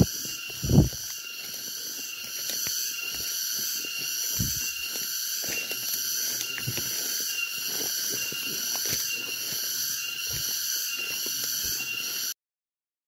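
A steady, evenly pulsing high-pitched insect chorus, typical of cicadas, over irregular thuds and rustles of footsteps through leaf litter and undergrowth, with two loud thumps in the first second. The sound cuts off suddenly near the end.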